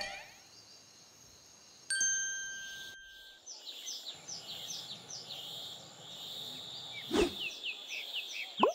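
A bright chime rings out about two seconds in and fades slowly. Then birds chirp in a run of short, falling calls, about two a second, over a faint outdoor hiss. A sharp click comes near seven seconds, and a short rising whoosh near the end.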